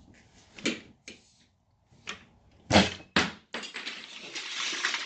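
A handful of sharp knocks and thumps, the loudest about three seconds in, followed by a steady rustling noise that builds over the last second and a half.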